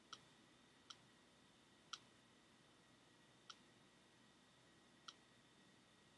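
Five faint, sharp computer mouse clicks at uneven intervals, the last about five seconds in.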